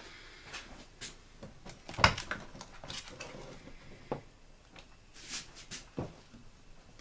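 Scattered clicks and knocks of hands handling a mini lathe and its power cord and plug, the loudest a sharp knock about two seconds in; the lathe's motor is not running.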